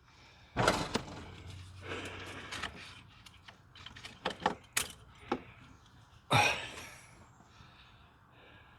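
Metal parts and tools clanking and rattling as they are handled, with heavier knocks about half a second in and again past six seconds.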